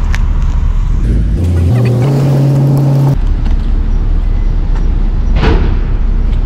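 A steady low rumble of traffic and road noise. About one and a half seconds in, a car engine's note steps up in pitch for under two seconds, and a short swish comes near the end.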